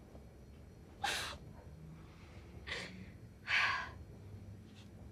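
Upset person's breathing: three sharp, noisy intakes of breath, about a second in, near the middle, and the loudest at about three and a half seconds, over faint room hum.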